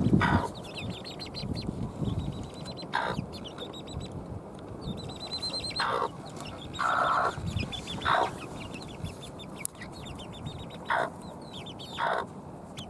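A flock of free-range chickens clucking, with single louder calls about 3, 6, 8, 11 and 12 seconds in and a longer, drawn-out call about 7 seconds in, over a steady low rumble.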